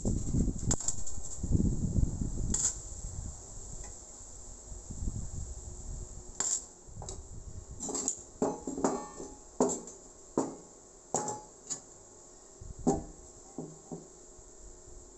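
Cut pieces of steel tubing and tools being handled on a concrete floor: a low rumble of handling noise for the first few seconds, then about a dozen sharp, irregular metallic clinks and knocks as the pieces are picked up and set down.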